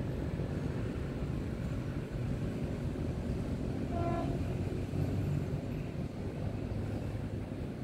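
Steady low rumble with a single short horn blast about four seconds in.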